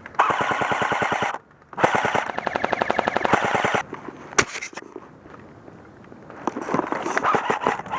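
Airsoft electric gun firing full-auto in two long bursts of rapid, evenly spaced shots, the second burst about two seconds long. A single sharp snap follows a few seconds in.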